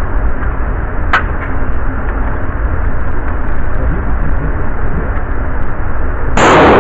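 Steady loud noise of an indoor shooting range, with one sharp click about a second in as the PPS-43 submachine gun is handled, and a single gunshot near the end, the loudest sound.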